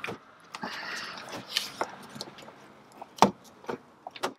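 Blue plastic trim tool prying a clipped interior light out of an Audi TT Mk2's headliner: scattered plastic clicks and scraping, with a sharp click about three seconds in and another near the end.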